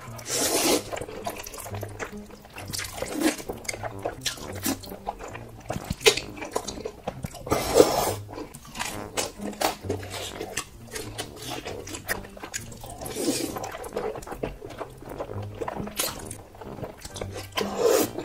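Jajangmyeon noodles being slurped noisily from chopsticks: several long wet slurps a few seconds apart, with chewing and sharp mouth clicks between them.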